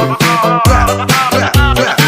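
Upbeat funk-style background music with a steady, quick beat, bass and a pitched lead line.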